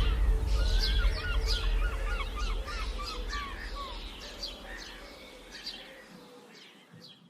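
Several birds calling and chirping, with a quick run of repeated chirps in the first half, over a low rumble; the whole fades out toward the end.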